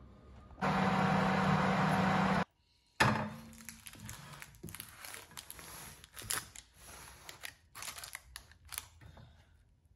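A loud, steady rushing noise with a low hum lasts about two seconds and cuts off suddenly. Then a metal baking tray is set down with a sharp knock on a wire cooling rack, followed by parchment paper rustling and crinkling with light taps.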